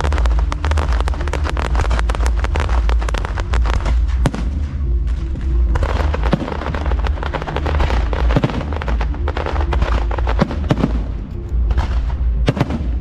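Fireworks going off in a dense, continuous crackle of bangs over deep booms. The crackle thins briefly about five seconds in and becomes sparse near the end.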